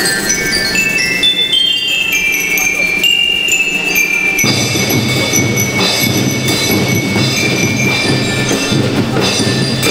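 A school rhythm band playing: bell lyres ring out a descending run of high metal notes, then about four and a half seconds in the drums come in under them with a steady beat while the lyres keep playing.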